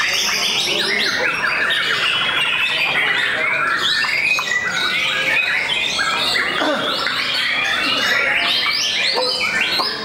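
Many caged songbirds in competition singing at once: a dense, unbroken mass of overlapping whistles, trills and chirps.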